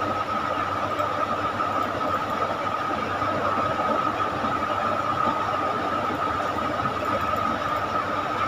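Steady background noise: an even hiss and rumble with a constant high-pitched whine running through it.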